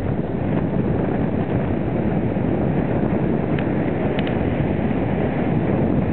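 Strong wind buffeting the microphone: a steady low rumble, with a few faint ticks about four seconds in.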